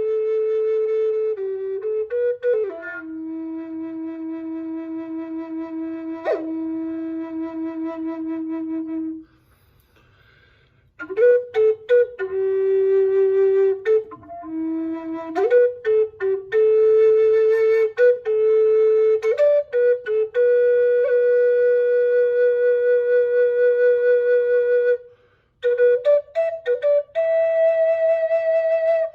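Solo wind instrument playing a slow melody of long held notes, one at a time, with a pause of about two seconds around nine seconds in.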